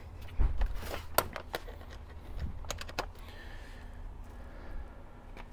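Clicks and plastic rattles as a patient lift's charger cord and plug are handled and plugged into an extension cord reel, about half a dozen sharp clicks in the first three seconds, then quieter fumbling.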